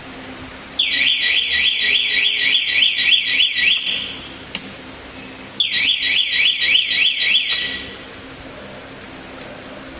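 Electronic alarm buzzer of an annealing furnace sounding in two bursts of rapid falling sweeps, about four a second, with a short click between the bursts.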